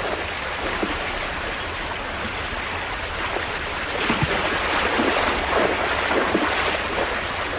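Creek water rushing steadily, with splashing from bears wading and fishing for salmon, growing busier about halfway through.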